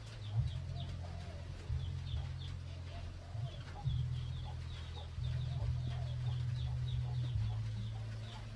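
Birds calling in the background: wavering low calls and many quick, high, falling chirps, over a loud, uneven low rumble.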